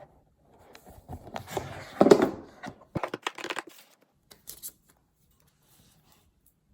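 Packaging of an iPad box being handled by hand: rubbing and tearing of paper wrap and cardboard, with a quick run of light clicks about three seconds in.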